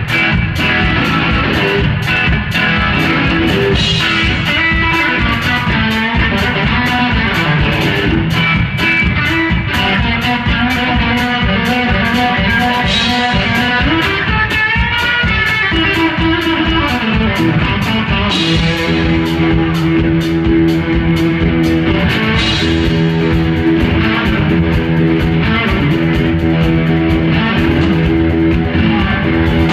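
Live rock played on electric guitar and drum kit, an instrumental passage with no singing. About halfway through, the guitar settles into long held notes over the drums.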